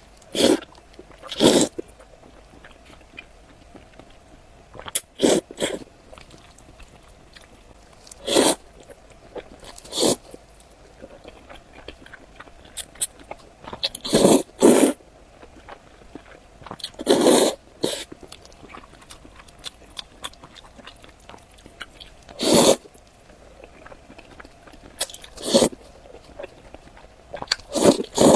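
Close-miked eating sounds: about a dozen short, loud mouth sounds of biting and chewing food, coming at uneven gaps of one to several seconds.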